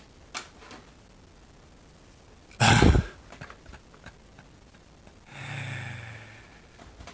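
A man's breath: a loud, short exhale blown onto the microphone about two and a half seconds in, then a low voiced sigh lasting about a second near the end. It is an exasperated reaction to finding a flaw.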